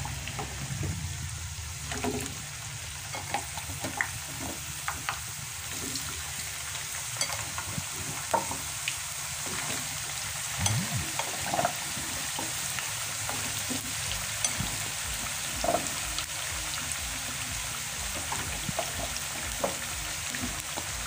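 Raw potato wedges frying in hot oil in a nonstick pan: a steady sizzling hiss with scattered sharp pops and crackles as more wedges are added to the oil.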